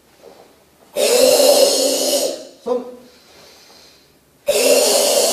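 A karateka's forceful, throaty breath, heard twice, each about a second long, typical of the ibuki breathing of Kyokushin kata. Between the two breaths comes a short shouted count.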